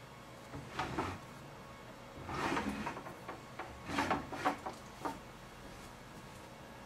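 An antique A.K. Johnston celestial library globe being handled and turned by hand in its wooden stand. Four short bursts of rubbing with light knocks are spread over about four seconds.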